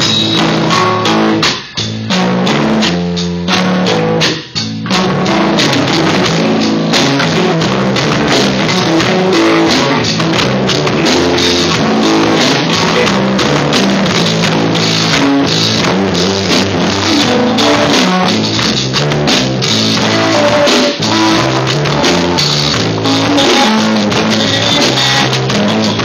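A jazz-grunge band playing loudly on drum kit, guitar and bass. It breaks off briefly twice in the first five seconds, then plays on without a break.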